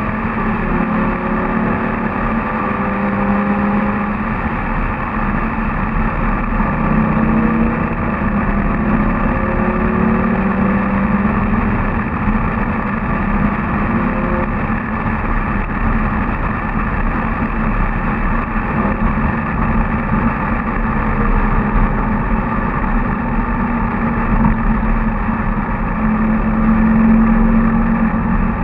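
Lamborghini Gallardo LP 570-4 Superleggera's V10 engine running steadily at moderate revs while the car drives, its note rising and falling gently with the throttle.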